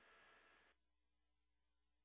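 Near silence: the narration track drops out, leaving only a very faint steady hum.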